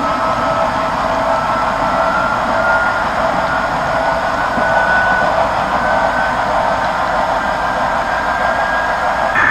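HO scale model freight cars rolling past on the track: a steady rolling rumble of wheels on rails, with a faint whine that rises slowly in pitch.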